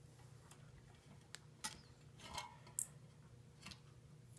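Faint, scattered clicks and a short rustle as insulated wires are pushed and bent into a steel electrical box, over a low steady hum.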